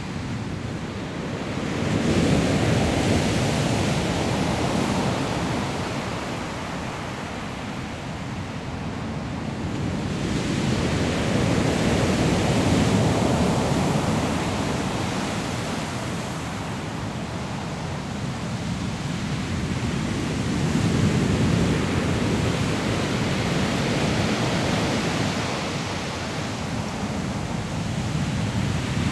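Sea surf breaking on a pebble beach, a continuous rush of water that swells with each incoming wave about every eight to ten seconds and ebbs between them.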